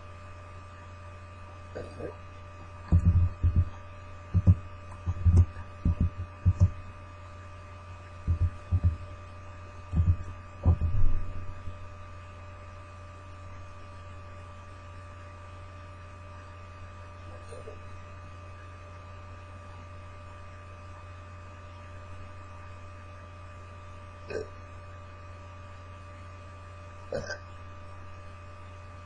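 Steady electrical hum with a few thin higher tones over it. In the first dozen seconds it is broken by about a dozen short, low thumps, some in quick pairs, and a few fainter ones follow later.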